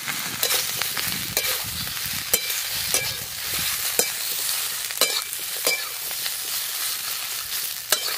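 Vegetables frying in oil in a metal kadai, sizzling steadily while a metal spatula stirs them, with irregular clinks and scrapes of the spatula against the pan about once or twice a second. The ginger and radhuni spice pastes are being fried in with the vegetables.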